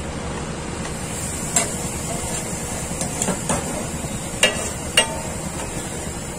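Flat steel spatula scraping and striking a large flat tawa as chicken in thick gravy is stirred. It gives a series of sharp metal clinks at irregular spacing, the loudest two about four and a half and five seconds in, over a steady background hum.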